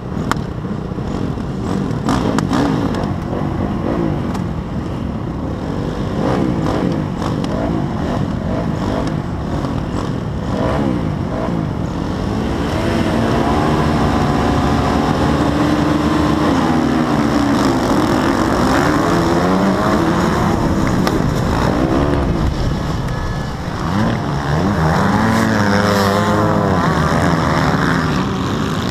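A field of motocross bikes revving at the starting gate, many engines blipping together. From about halfway one nearby engine is held high and swings up and down in pitch, and near the end the engines rise in pitch as the bikes launch from the start.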